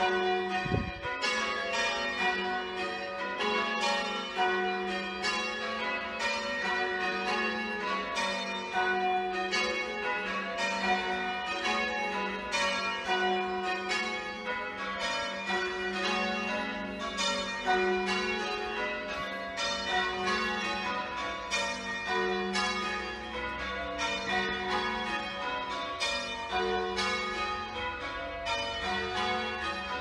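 Change ringing on a ring of six church bells, back three by Mears and Stainbank and front three by John Rudhall, tenor 13 cwt in F#, heard from outside the tower: an unbroken, even stream of bell strokes.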